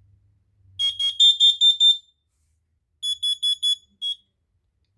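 Interconnected Kidde smoke and carbon monoxide alarms sounding, with the voice alarm calling carbon monoxide just before and after: a fast run of about six high-pitched beeps about a second in, then a group of four beeps and one more shortly after.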